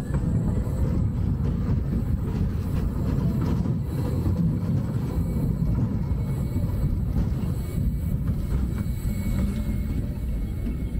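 Small children's roller coaster train running along its steel track, a steady low rumble of the wheels and cars heard from on board.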